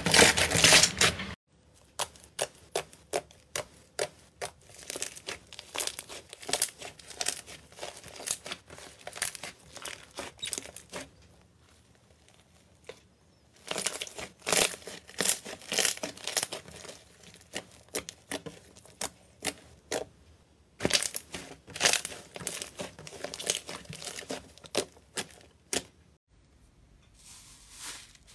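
Hands squeezing and kneading thick slime, giving rapid sticky crackles and pops as trapped air bursts. The pops come in clusters, with a short quiet pause about halfway through.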